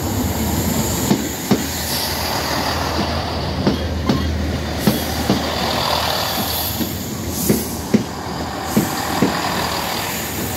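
Diesel multiple-unit passenger train passing at close range, with a steady low engine hum and its wheels clacking irregularly over the rail joints.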